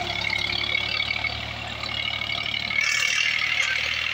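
Farm tractor's diesel engine running hard under load as it drags a loaded trolley out of a mud rut, growing a little louder about three seconds in.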